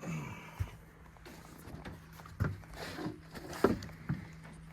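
Scattered knocks and thumps of handling on a fishing boat, the loudest about three and a half seconds in, over a steady low hum.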